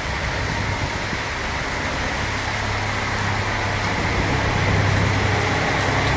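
Heavy rain pouring in a steady hiss. A tractor pulling a trolley passes below: its engine's low hum comes in about two seconds in and grows louder toward the end.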